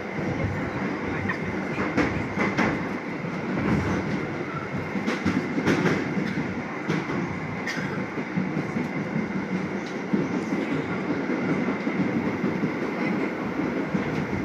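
Serayu passenger train heard from inside the carriage while under way: a steady rumble of the wheels on the track, with irregular sharp clacks over the rail joints and a thin steady high tone.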